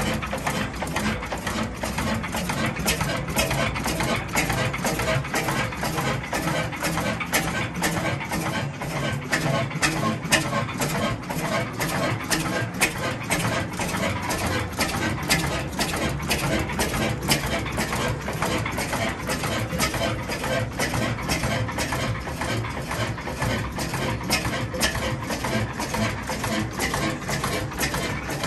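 1919 Hornsby 6 hp single-cylinder horizontal stationary engine running steadily on its first start, with a rhythmic mechanical clatter of evenly spaced clicks and knocks.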